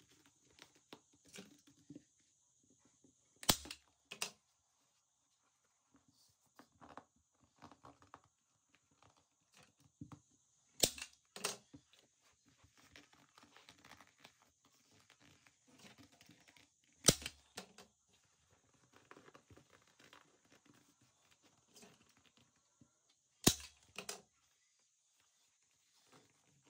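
Staple gun firing staples through leather into a chair-seat board: four times, two sharp snaps about half a second apart. Between the shots, soft rustling as the leather hide is pulled taut and smoothed by hand.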